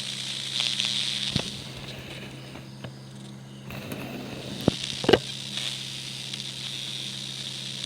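iPhone 17 Pro Max speaker giving off crackling, hissing static over a steady low hum, with a few sharp pops about a second and a half in and twice around five seconds in. It is the speaker noise that appears while the phone is charging.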